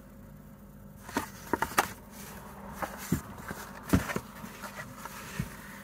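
Photo prints being handled and slid over one another: scattered short paper crackles and light taps.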